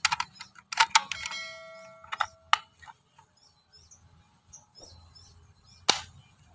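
Mouse-click sound effects and a ringing bell chime from a subscribe-button animation, with another sharp click near the end. Faint bird chirps in the background.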